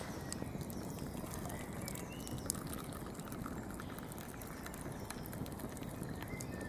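Campfire burning: a steady hiss with many small scattered crackles and ticks.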